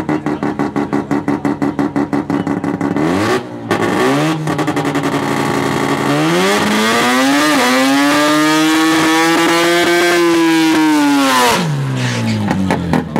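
Mazda rotary engine in a drag-race hatchback idling with a choppy, fast-pulsing lope, blipped briefly, then revved up and held high for about five seconds before dropping back to the choppy idle.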